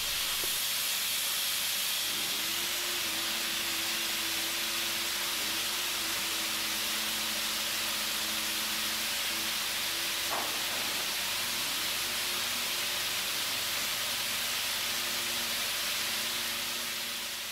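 Compressed air hissing steadily from an air-driven pipe-painting machine and its air supply, with a faint low hum underneath.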